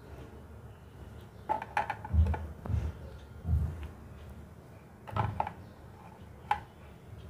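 Light clicks and soft dull thuds of mashed boiled potato being placed onto crisp puris on a ceramic plate. There are a few irregular taps, some with a brief ring from the plate.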